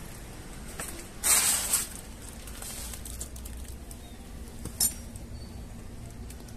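A short metallic clatter about a second in and a single sharp click near five seconds, over a steady low hum.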